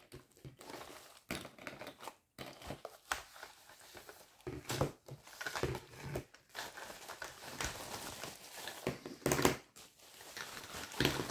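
Packing wrap crinkling and rustling in irregular handfuls as it is unwound from the pipe-like parts of an embroidery frame.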